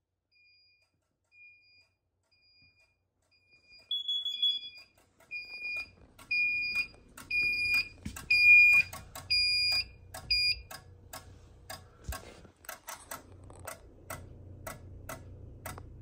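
Carbon monoxide detector set off for a test, sounding a repeated beep that gets louder and stops about eleven seconds in, followed by a run of sharp clicks.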